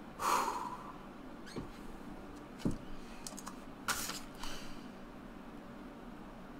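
Thin clear plastic packaging being handled: a short rustle just after the start, then a few scattered clicks and crackles.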